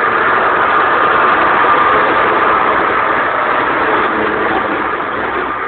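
Steady engine and road noise of a vehicle driving along a highway, picked up at the vehicle's window.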